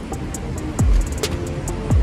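Music with a steady electronic beat: deep kick drums that drop in pitch, ticking hi-hats and a sustained synth line.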